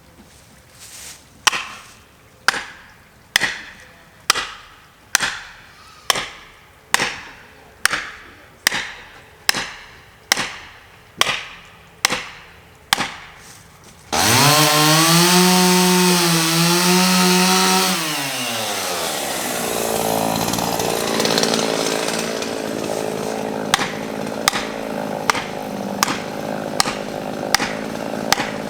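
A run of about fourteen sharp strikes on wood, a little under one a second, then a chainsaw starts about halfway through, revving high for several seconds before dropping back and running on under load as it cuts.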